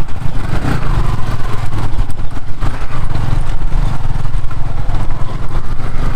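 Yamaha R15 motorcycle engine running as the bike is ridden, with a loud, steady low rumble.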